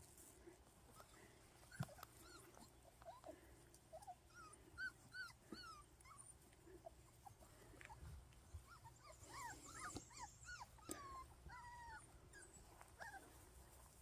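Faint whimpers and yips from five-week-old Miniature American Shepherd puppies: short, squeaky rising-and-falling calls, in a cluster about five seconds in and a busier one around ten seconds in. A single sharp tap sounds about two seconds in.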